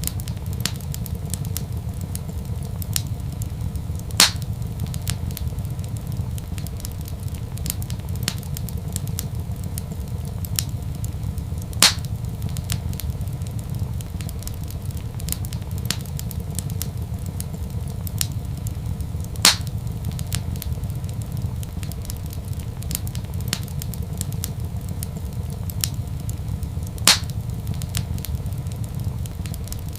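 Crackling wood fire in a fireplace: constant small crackles over a steady low rumble, with four louder pops about seven and a half seconds apart.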